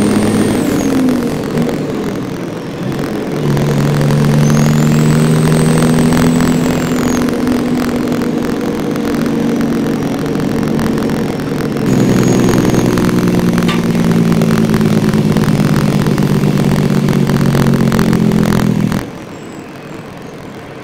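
Recovery truck engine running under load as the truck drives, heard loudly in the cab; its pitch shifts at about three and a half and twelve seconds in. A thin high whistle rises and falls twice in the first seven seconds, and the engine sound drops away suddenly near the end.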